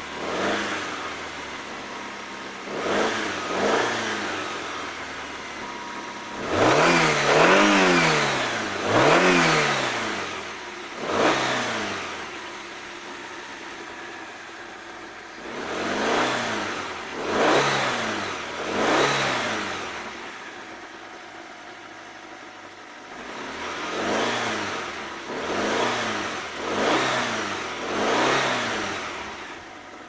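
Petrol engine of a 2006 Hyundai Santa Fe (180 PS) revved in quick blips, each rising and falling in pitch and dropping back to idle. The revs come in groups of three or four, the strongest group about a quarter of the way in, with a few seconds of steady idling between groups.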